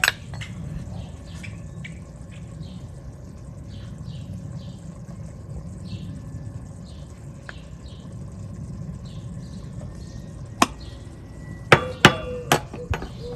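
A metal spoon clinking sharply against a white enamel cooking pot about five times near the end, the clinks ringing briefly, while salt is added to yam slices in water. Faint chirping repeats throughout over a steady outdoor background.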